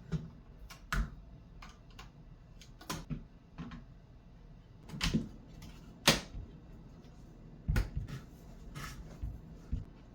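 Irregular clicks and knocks of electronic drum-kit rack hardware (metal tubes, clamps and plastic fittings) being handled and fitted, about a dozen scattered taps with the sharpest one about six seconds in.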